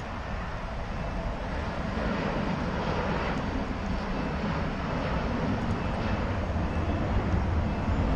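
Jet airliner taking off, its engine noise a steady rumble that grows gradually louder.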